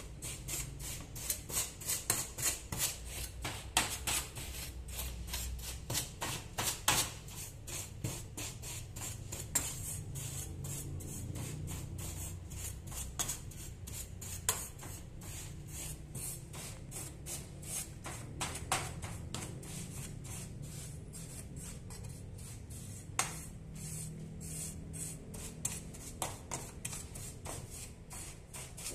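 Rapid dry scratching strokes, about three a second and irregular, with a faint steady low hum underneath.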